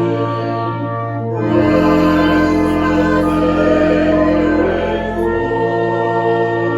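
Sacred choral music: a choir holding slow sustained chords over a held low bass. The chord changes about a second and a half in and again near the end.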